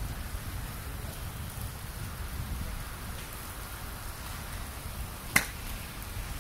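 Golf iron striking a ball off a turf hitting mat: one sharp click about five seconds in, over a low steady rumble.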